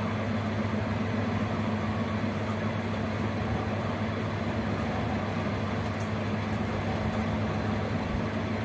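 Steady low hum and whir of a small running motor, with a couple of faint ticks.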